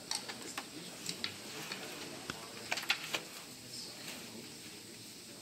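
Irregular light clicks and taps from someone working at a laptop and fiddling with its display cable, with a quick cluster of louder clicks about three seconds in.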